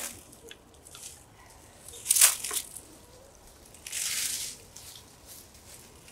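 Short crunches and rustles of someone moving on dry leaf litter and handling a plastic syrup bucket: a click at the start, a loud crunch about two seconds in and a brief hissing rustle about four seconds in.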